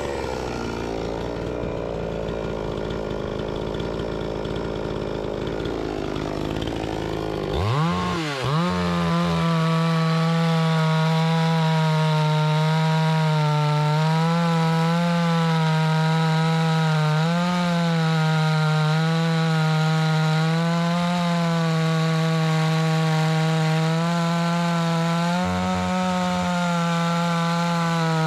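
Petrol chainsaw idling for several seconds, then revved up about eight seconds in and held at high revs with slight dips under load as it rips a log lengthwise along the grain.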